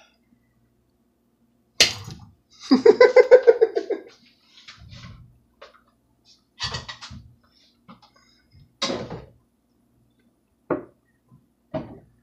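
A sharp click, then a man's short burst of laughter, followed by a few scattered knocks and clatters of dishes being handled at a kitchen counter.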